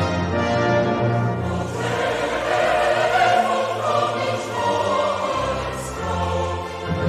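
A choir singing with an orchestra: held chords over a bass line that moves every second or two.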